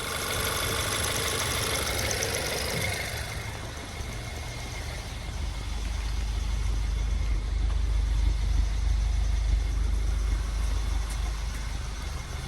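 VW GTI's 2.0-litre turbocharged four-cylinder engine running at idle, a steady low rumble that grows heavier about halfway through.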